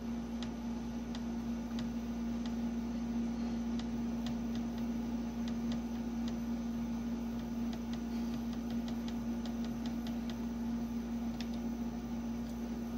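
Laptop keyboard keys clicking as they are pressed one at a time at an irregular pace, with a quick run of presses about nine seconds in, over a steady low hum.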